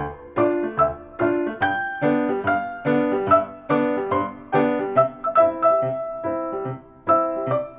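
Background piano music: a steady melody and chords played with a regular beat.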